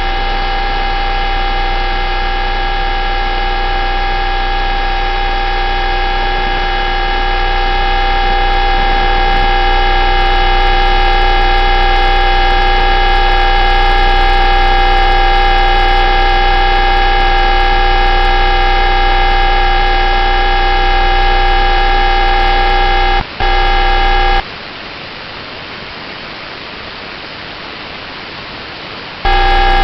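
UVB-76 'The Buzzer' shortwave radio station sending a steady buzzing hum over a bed of static hiss. The hum drops out for a moment about 23 seconds in, then stops for about five seconds, leaving only the hiss, and comes back near the end.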